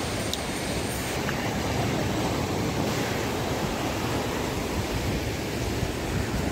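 Sea surf breaking steadily on a rocky shore, with wind rumbling on the microphone.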